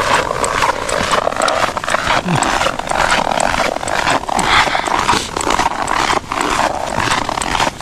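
Footsteps crunching in packed snow, one step after another in a loose walking rhythm.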